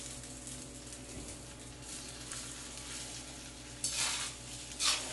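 Fried rice with shrimp and chicken sizzling steadily in a wok, with two short spatula scrapes against the pan near the end.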